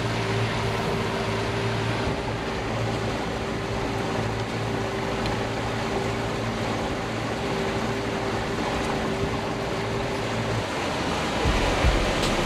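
Honda outboard motor on a pontoon boat running steadily underway, with a constant rush of water and wind past the boat. The engine's steady hum drops out shortly before the end.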